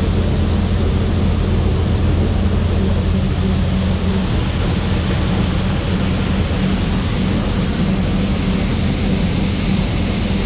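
Combine harvester running steadily while harvesting corn: an engine drone over the rush of the threshing machinery.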